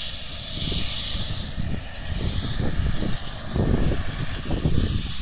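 Air ambulance helicopter running on the ground at a distance: a steady rushing engine-and-rotor drone with an uneven low rumble underneath.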